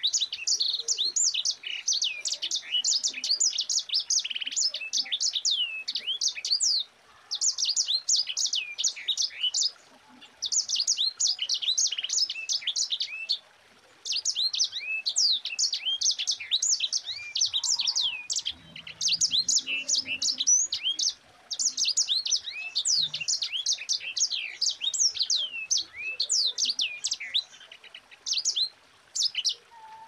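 Sanger (white-rumped seedeater, grey singing finch) singing a fast, continuous rolling song of quick, high twittering whistled notes, in long phrases broken by brief pauses about five times.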